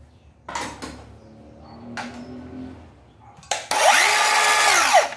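Hitachi 18V brushless cordless metal-cutting saw triggered briefly: after a click, the motor whirs up to speed, runs about a second and winds down, its pitch falling as it stops. A couple of knocks from handling the saw come about half a second in.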